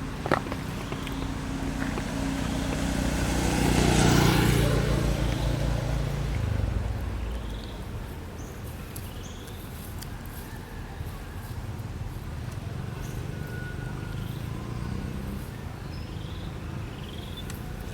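A motor vehicle passing by: its engine swells to a peak about four seconds in and fades away by about seven seconds. A sharp click comes just after the start, and faint short chirps follow in the background.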